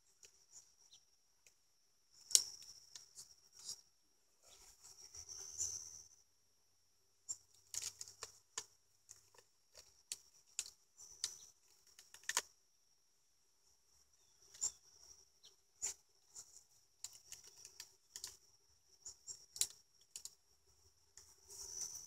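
Beehive parts being handled: scattered sharp clicks and knocks with short scraping and rustling spells, the loudest a knock about two and a half seconds in.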